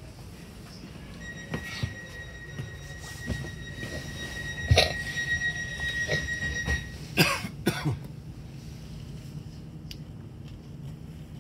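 Merseyrail Class 777 electric train running slowly into an underground platform, with a steady low rumble and a steady high whine lasting about six seconds. A few knocks come through, and someone coughs twice about seven seconds in.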